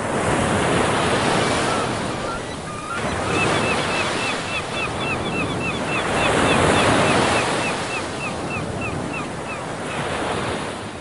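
Outdoor rushing noise, rising and falling in waves, with a small bird chirping in quick repeated notes, about three a second, from about three seconds in until near the end.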